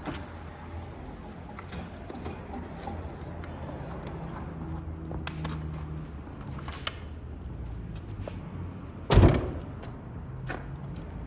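Handling noises from the tyre repair kit being opened and unpacked: scattered small clicks and knocks, and one loud thump about nine seconds in.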